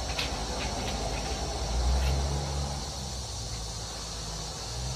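Outdoor ambience: a low rumble that swells about two seconds in and then fades, over a steady high hiss, with a few faint light clicks.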